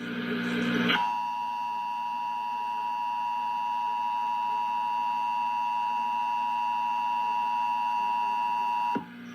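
Emergency Alert System attention signal: a steady two-tone alert (853 and 960 Hz) held for about eight seconds, starting about a second in after a brief noisy lead-in and cutting off abruptly just before the end.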